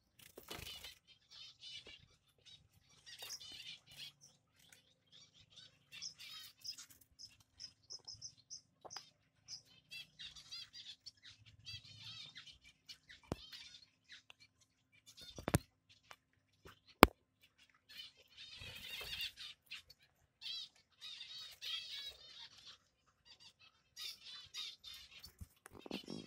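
Baby finches chirping in the nest: repeated clusters of high, thin peeping calls, with one fast run of short notes. Two sharp knocks stand out just past the middle.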